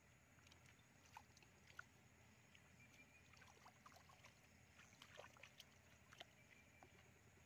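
Faint sloshing and small splashes of hands groping through shallow muddy water, in many short irregular bursts that come thickest about halfway through.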